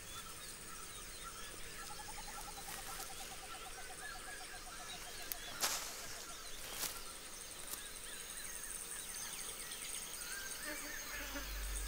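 Faint natural forest ambience with small animal calls: scattered chirps and a rapid trill lasting a few seconds, plus two sharp clicks near the middle.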